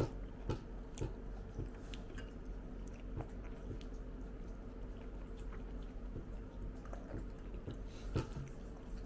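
Close-up eating sounds: chewing with irregular soft mouth clicks and smacks, over a faint steady hum.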